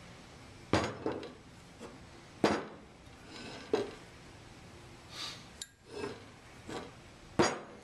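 Stainless steel sampler body, with its sample tube and air cylinder, set down and handled on a table: several sharp metal clunks, the loudest about a second in, at about two and a half seconds and near the end, with softer scraping and rubbing between them.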